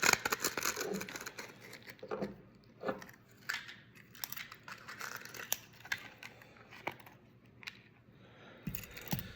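Cardboard packaging being worked open by hand: irregular crinkling and rustling with many small clicks and snaps, busiest and loudest in the first second.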